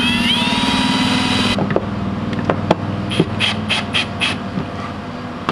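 RIDGID cordless drill running steadily under load, then stopping about a second and a half in. A string of sharp clicks follows, five of them in quick, even succession near the middle.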